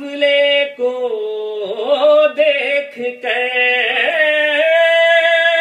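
A man's solo voice singing an Urdu naat without accompaniment, in drawn-out notes that bend and slide in pitch. About four and a half seconds in he settles on one long held note.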